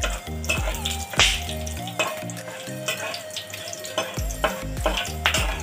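Whole spices (bay leaves, cinnamon sticks, cardamom pods and cloves) sizzling in hot oil in a kadai, stirred with a metal spatula that clicks and scrapes against the pan now and then.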